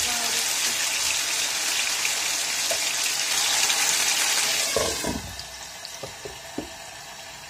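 Pork chops sizzling loudly in hot oil in a frying pan. About five seconds in, a glass lid is set on the pan with a thud, and the sizzle drops to a much quieter, muffled frying sound with a few small ticks.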